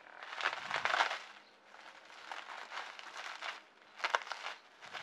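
Clear plastic bubble-wrap packaging crinkling and crackling as it is handled and pulled open by hand. The crinkling is loudest in the first second or so, softer in the middle, and picks up again about four seconds in.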